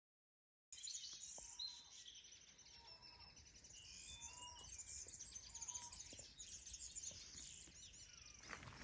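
Dead silence for a moment, then several birds chirping and singing, with a few clear whistled notes, over faint outdoor background noise.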